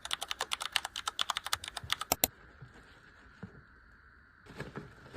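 A rapid run of taps, about nine a second, that stops a little over two seconds in. A short cluster of softer taps follows near the end.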